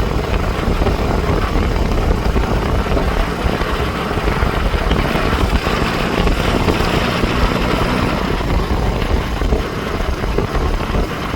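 John Deere 5310 tractor's diesel engine running steadily while the tractor drives along, with a dense low rumble.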